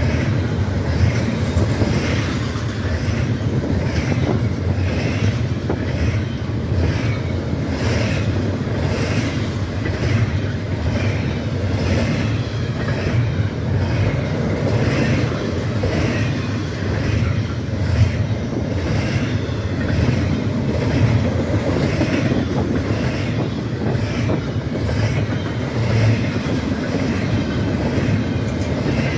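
Freight train rolling past with a steady rumble, its car wheels clacking in a regular rhythm over the rail joints.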